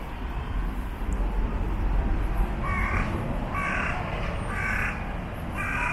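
A crow cawing four times, about a second apart, starting about three seconds in, over a steady low rumble.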